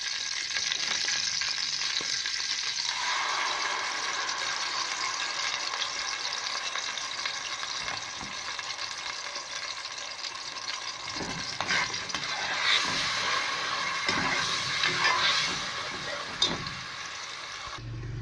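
Ground onion, garlic, ginger, tomato and green chilli paste sizzling in hot ghee in a pot, the sizzle filling out about three seconds in. A metal spoon stirs it and knocks against the pot a few times in the second half.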